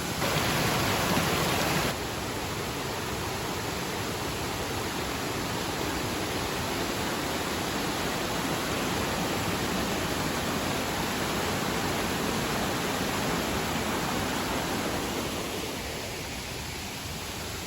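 Steady rushing water, louder for the first two seconds and easing slightly near the end.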